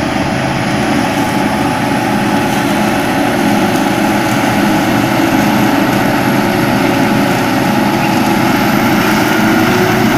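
John Deere farm tractor's diesel engine running steadily under load, driving a rear-mounted PTO shredder that chops through tall grass. Loud and continuous.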